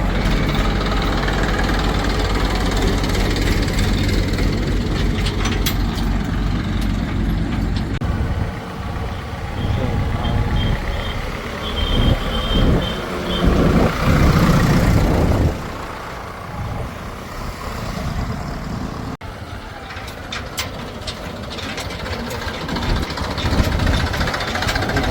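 Heavy diesel machinery running, steady at first, then surging louder under load about twelve to fifteen seconds in, with a short run of high beeps in the middle. The sound changes abruptly a little before the end to a quieter engine.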